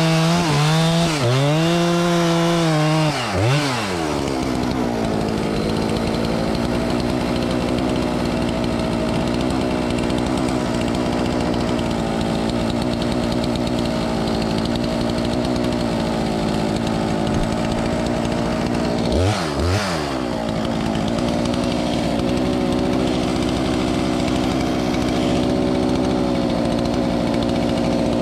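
Chainsaw revving up and down for a few seconds, then running steadily through a long cut in a tree. The pitch dips and picks back up briefly about two-thirds of the way through.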